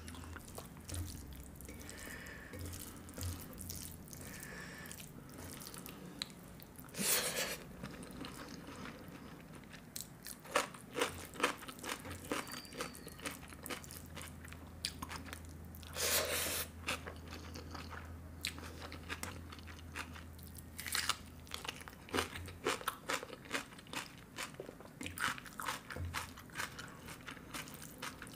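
Close-up eating sounds of a person chewing rice and curry eaten by hand: many small wet clicks and smacks, with a couple of louder mouthfuls about 7 and 16 seconds in. A steady low hum lies underneath.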